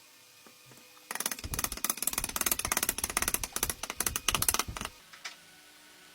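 A rapid clatter of sharp knocks and clicks, starting about a second in and stopping about four seconds later.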